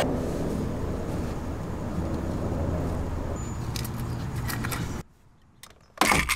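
Steady low rumble of ambient noise, with a few light clicks about four seconds in as a blind rivet and nylon strap are fitted to a hand rivet gun. After a moment of near silence, the hand rivet gun snaps loudly as it pulls a pop rivet tight through the strap into the steel door frame.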